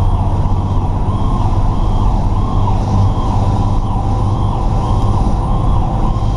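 A fire truck's siren cycling up and down about twice a second, over the steady drone of the 2003 Pierce Dash's diesel engine under way.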